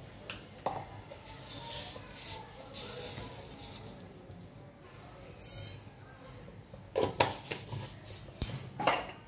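Mustard seeds tipped into oil in a small steel saucepan. Sharp metal-on-metal clinks about seven seconds in and again near the end, with a faint hiss earlier on.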